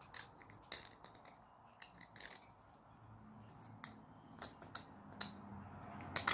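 Light metallic clicks and scrapes from handling small hand-forged steel scribes: a scattered run of sharp ticks, with the loudest cluster near the end.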